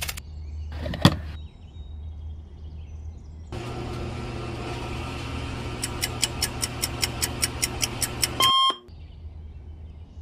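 Petrol pump dispensing: a steady motor hum, joined partway through by the meter clicking about six times a second, then a short beep as it stops. A single sharp swish comes about a second in.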